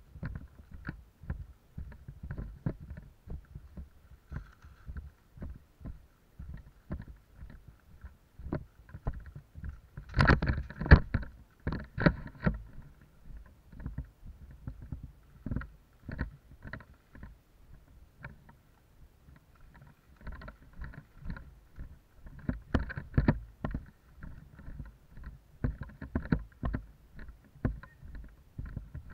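Footsteps on dry leaf litter, about two steps a second, with clothing and gear rustling. A louder flurry of steps and brushing comes about ten seconds in.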